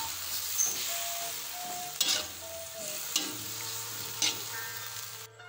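Food frying and sizzling in an aluminium wok while a metal spatula stirs it, with a sharp clack or scrape of the spatula on the pan about once a second. The sizzle cuts off suddenly just before the end.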